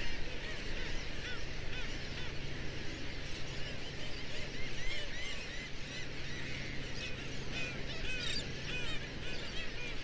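A black skimmer colony calling: many short, arched calls overlapping into a dense chorus, busiest in the middle of the stretch, over a steady low background noise.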